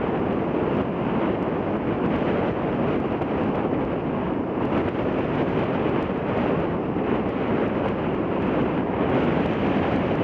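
Wind blowing hard across the microphone, a steady rushing noise.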